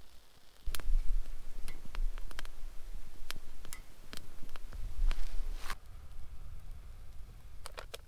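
Irregular sharp clicks and knocks, a dozen or so, some in quick clusters, over a low rumble.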